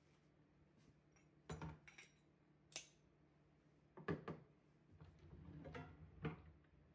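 Metal espresso tools clinking and rattling in a kitchen drawer as a portafilter is lifted out, then the portafilter set down on the countertop with a sharp knock about four seconds in. Near the end the drawer slides shut with a bump.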